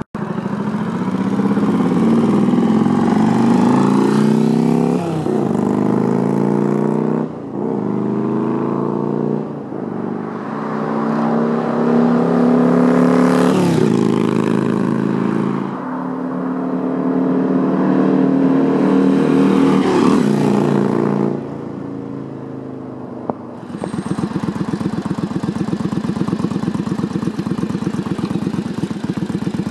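Yamaha XV750 Virago motorcycle's V-twin engine, revving up and dropping sharply in pitch several times, then settling into a steady, pulsing idle for the last several seconds.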